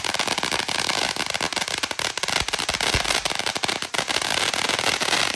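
Small firecrackers going off in a dense, rapid crackle of sharp pops that keeps on without a break.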